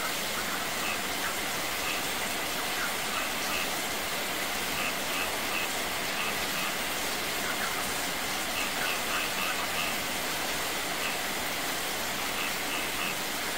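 Steady rain falling with water pouring and splashing: runoff streaming down from above into a wet yard and a small cascade spilling over rocks, an even rushing hiss. Scattered short high plinks sound over it.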